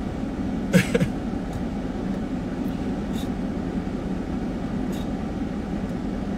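Steady low hum inside a car's cabin with the car running, and a brief vocal sound about a second in.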